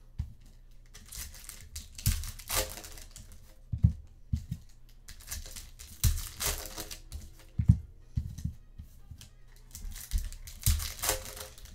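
Donruss football card pack wrappers being torn open and crinkled, in several separate rips, with a couple of dull knocks between them.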